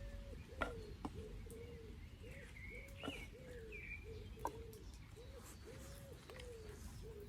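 Birds calling: a low cooing, repeated over and over, with higher chirps above it. A few sharp crackles from the campfire stand out, the loudest about half a second in.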